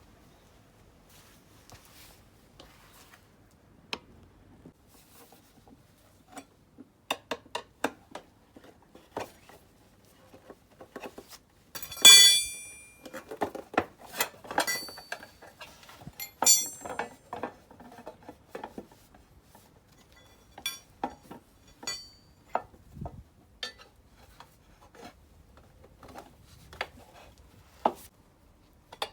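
Hand tools being worked on a scooter wheel for a tyre change: scattered metallic clinks, taps and knocks, with two louder ringing metal clanks about 12 and 16 seconds in.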